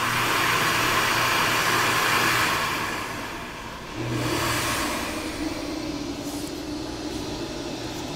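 Acorn all-in-one sink's built-in hand dryer blowing air over a steady motor hum. It eases off about three seconds in and switches on again about a second later as a hand moves back under the spout.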